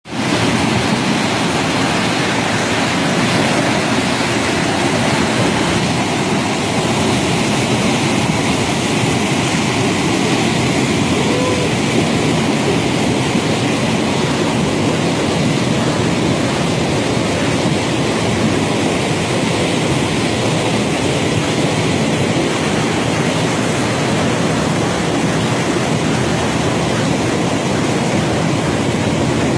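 Mountain brook rushing loudly and steadily over rocks, a constant roar of water.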